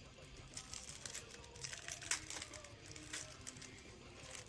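Trading cards being handled: faint crinkling and a scatter of light, sharp clicks as cards are sorted.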